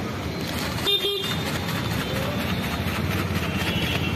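Street traffic running steadily, with a vehicle horn tooting briefly twice about a second in.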